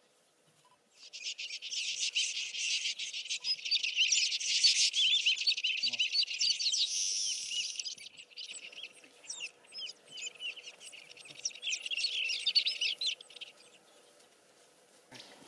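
Dense chorus of many small birds chirping and twittering, starting abruptly about a second in and thinning out near the end.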